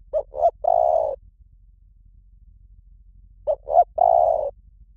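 Spotted dove cooing: two short notes followed by a longer note, the phrase given twice about three and a half seconds apart.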